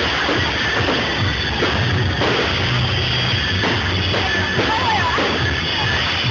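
Music with drums, continuous and unbroken.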